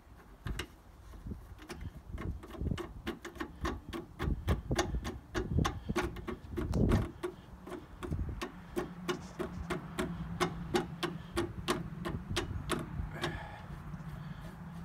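Rapid, evenly spaced clicking, about three clicks a second, as the air filter canister's end-cap nut is turned by hand to tighten the cover.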